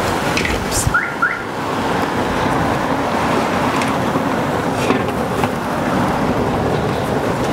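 A steady rushing noise throughout, with a few soft clicks and cloth rustles as a heavy sacking cover is pulled off a domed clay tandoor lid, and two short rising chirps about a second in.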